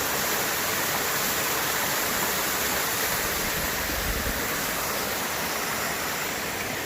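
Steady rush of creek water, a waterfall or rapids, with a brief low rumble about four seconds in.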